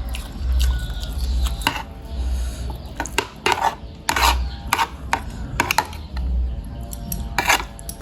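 Spoon and fork clinking and scraping against a bowl of bakso and noodles during eating, in irregular sharp clicks with low thuds underneath.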